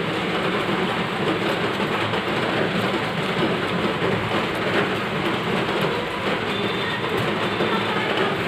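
Steady, even rushing noise that does not let up, like heavy rain falling.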